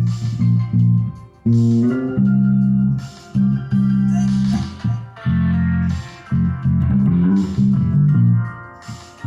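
Music led by a deep, loud bass line with plucked guitar, and short bright hits about once a second.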